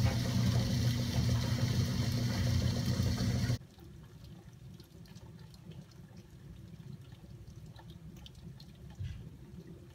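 Steady rush of heavy rain with a low hum beneath, cutting off abruptly about three and a half seconds in and leaving only faint room noise.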